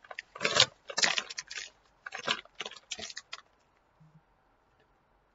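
A puffy snack bag of pork rinds crinkling as it is handled and turned over, in several crackling bursts that stop after about three and a half seconds.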